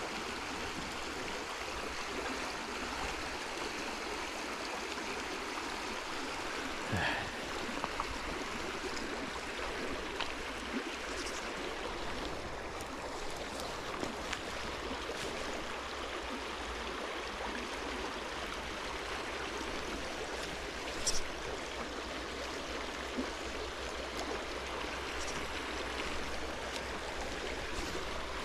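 Shallow creek riffle, steady rushing and gurgling of water over stones. A few faint brief taps sit over it, with one sharper click about three-quarters of the way through.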